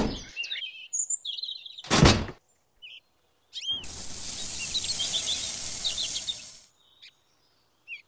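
Dry sand poured from a small metal bucket into a can-sized toy cement mixer drum, a steady hiss lasting about three seconds. About two seconds in there is a single thunk as the mixer is set down, and bird chirps come and go.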